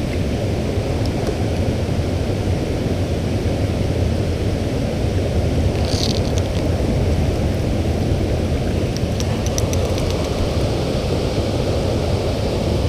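Steady low rush of flowing creek water. Small handling clicks come about six seconds in and again a few times around nine to ten seconds.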